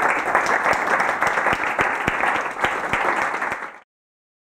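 Audience applauding, many hands clapping, until the sound cuts off abruptly near the end.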